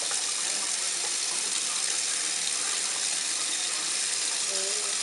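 Kitchen sink faucet running steadily, its stream of water splashing into the sink.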